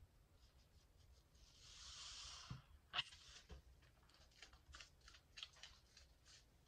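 Faint wet squishing of soapy sponges squeezed by hand in thick lather: a soft hiss about two seconds in, a sharp click near three seconds, then light crackling of foam and bubbles.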